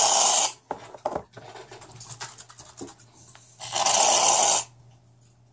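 Aerosol can of shaving foam spraying in two hissing bursts: the first cuts off about half a second in, and the second runs for about a second near the four-second mark. Faint crackles and small taps come between them.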